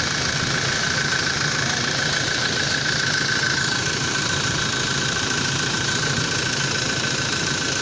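Toyota Innova diesel engine idling steadily with a constant high whine over the low drone, running after a new fuel filter was fitted and primed.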